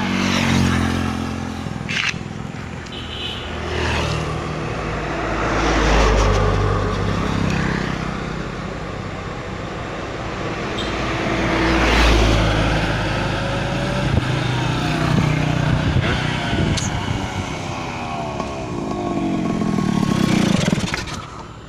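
Motorcycle engine revving hard and running past, swelling and fading several times. It is loudest about six and twelve seconds in and again just before the end, with falling pitch sweeps as it goes by.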